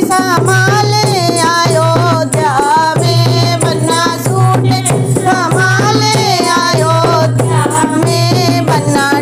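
Women and a girl singing a banna geet, a Hindi wedding folk song, together to a dholak played with the hands, its low drum strokes beating steadily under the voices.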